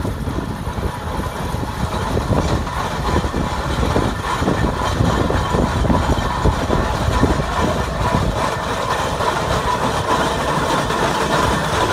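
Steam traction engine running along a gravel road, its engine working steadily and getting louder as it draws near and passes.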